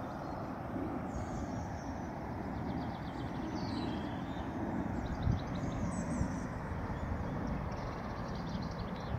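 Outdoor garden ambience: a steady low rumble, with small birds chirping faintly now and then in the background. There is a single bump about five seconds in.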